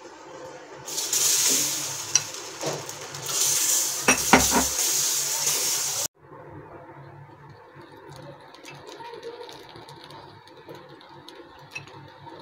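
Hot non-stick tawa hissing and sizzling loudly for about five seconds, with a knock about four seconds in, then cutting off abruptly. Afterwards there is only a faint sizzle with small scrapes as dosa batter is spread across the pan.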